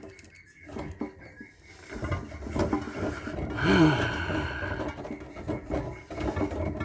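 Irregular knocks, clicks and scraping of metal parts being handled and pried apart while a solar inverter is dismantled by hand, busier from about two seconds in, with a short squeak-like tone that rises and falls near the middle.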